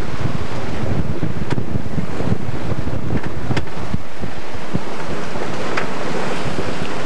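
Strong wind buffeting the camcorder microphone, with waves and rushing water beneath it and a few brief, sharp ticks.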